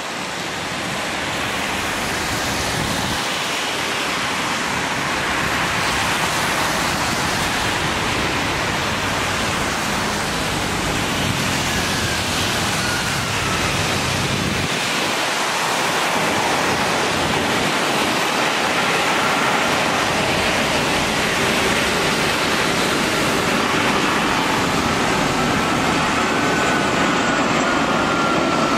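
Airbus A330-300's Rolls-Royce Trent 700 jet engines on final approach in heavy rain: a steady rushing noise that slowly grows louder as the airliner nears, with faint whining engine tones coming in past the middle.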